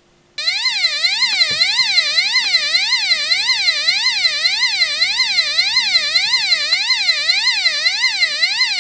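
UM3561A siren sound-generator chip driving a small round buzzer, giving a shrill electronic siren that glides up and down nearly twice a second. It switches on about half a second in, as the jumper wire completes the circuit.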